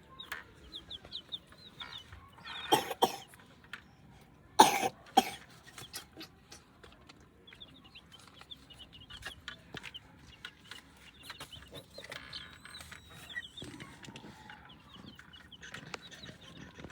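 Newly hatched chicks peeping in quick runs of short, high cheeps, with a hen clucking among them. Two loud, sudden harsh sounds break in about three and five seconds in.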